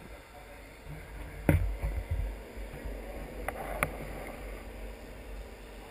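Muffled underwater sound in a koi show vat, with a steady low rumble and a few sharp knocks: one about a second and a half in, and two more a little after the middle.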